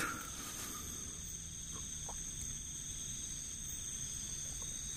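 Night insects calling steadily in a high-pitched, continuous drone, with a brief louder noise at the very start and a couple of faint ticks about two seconds in.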